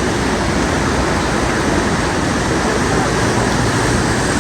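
Heavy rain: a steady, loud rushing hiss, mixed with the rumble of vehicle traffic on the wet road.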